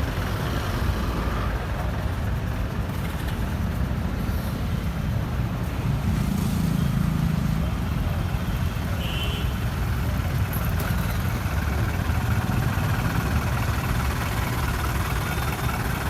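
Road traffic: the engines and tyres of cars, buses and trucks make a steady rumble. A short high beep sounds about nine seconds in.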